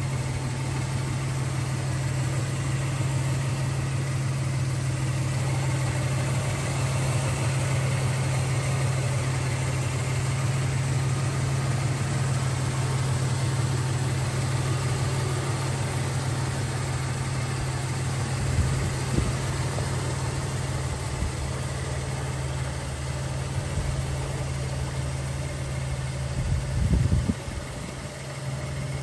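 1991 Toyota 4Runner's V6 engine idling steadily, a low even hum, with a brief louder bump near the end.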